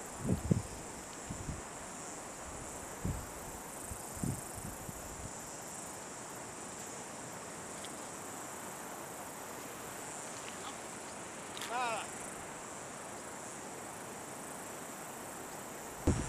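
Insects chirring in a steady high-pitched chorus. A few low knocks of handling come in the first few seconds, and a brief warbling call sounds once about twelve seconds in.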